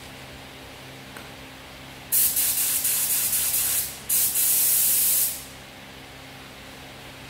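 SATA 5000 RP spray gun with a 1.3 nozzle spraying paint: two trigger pulls, each a loud hiss of air and paint that starts and cuts off suddenly, the first about two seconds long and the second a little over a second, with a short break between. A steady low hum runs underneath.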